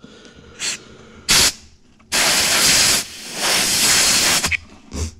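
Compressed-air blow gun hissing in repeated bursts into a twin-piston brake caliper's fluid port, trying to blow out its seized pistons. There is a short blast, then two long blasts of about a second each, and a brief one near the end.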